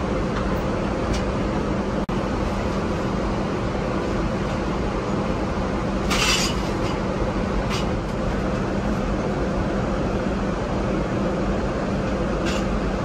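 Steady cabin drone inside a Boeing 777-300ER airliner, with a low hum under it. About six seconds in, a short paper rustle as a page of the wine list is turned, and a couple of fainter clicks later.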